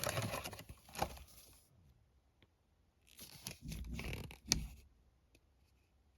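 Paper and cardboard packaging rustling and crinkling as it is handled, in two spells with a short quiet gap between, and a sharp click about four and a half seconds in.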